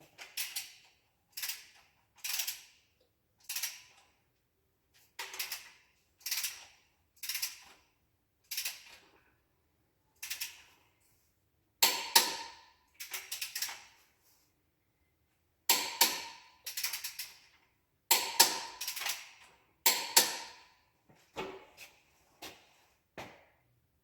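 Hand ratchet clicking in short strokes of rapid clicks, roughly one stroke a second with brief pauses, while tightening fasteners on a Perkins 236 diesel engine under assembly; some strokes ring metallically.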